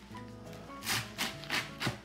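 Cleaver chopping through a bunch of chives on a plastic cutting board, four sharp chops in the second half, over background music.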